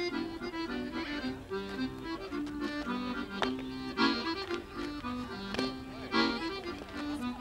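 Accordion playing a lively folk dance tune, with a few sharp knocks sounding through it about halfway in.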